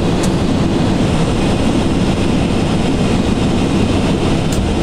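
Steady cockpit noise of an Ilyushin Il-86 airliner in flight: a constant rumble of airflow and its four turbofan engines, heaviest in the low end. Two faint ticks come near the start and near the end.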